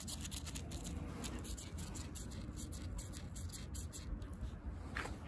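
Footsteps crackling over dry leaves and twigs on paving stones, a quick run of small crunches, over a steady low rumble.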